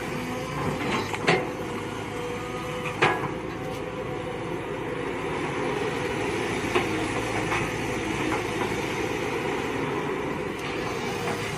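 Mini excavator's engine and hydraulics running steadily, with a few sharp metallic clanks: two loud ones in the first three seconds and a lighter one about seven seconds in.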